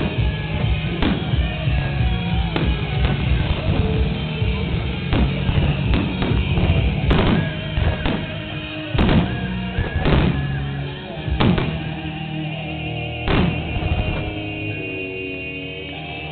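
Music playing throughout, over the sharp bangs of aerial firework shells bursting overhead, about eight of them, one every one to two seconds.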